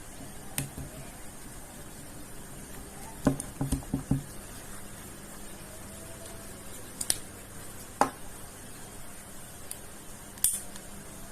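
Scattered sharp clicks and taps from handling a crimping tool and a UTP cable with a freshly crimped RJ45 connector, including a quick cluster of several clicks about three to four seconds in.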